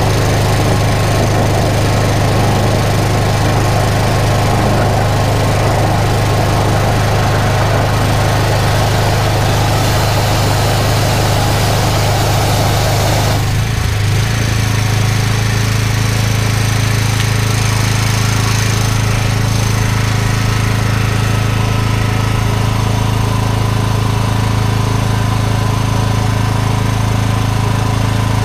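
Engine of a drain jetting machine running steadily, with water rushing as the high-pressure jet works the drain. About halfway through, the rushing stops suddenly and the engine runs on with a slightly changed tone as the jet is shut off.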